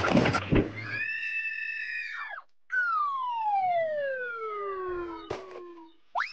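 A short clatter, then whistle-like sound effects: a tone held for about a second and a half, then one long falling glide of about three seconds, and a quick rising glide at the end.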